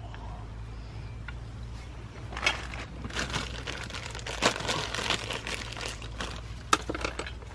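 Clear plastic hardware bag crinkling as it is handled and opened, in irregular spells from about two seconds in, with a sharp click near the end.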